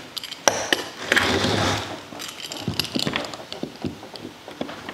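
Spline roller pressing the spline and aluminum screen mesh into a screen frame's channel: a scraping, crinkling rush about half a second to two seconds in, then scattered small clicks and ticks.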